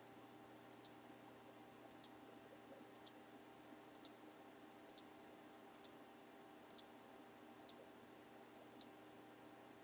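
Faint computer mouse clicks, roughly one a second, each a quick double tick of button press and release, re-running an online list randomizer over and over. A low steady hum sits underneath.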